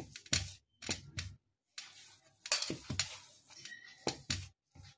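Hands kneading and pressing grated boiled potato against a steel plate, making irregular short squishing and scraping strokes.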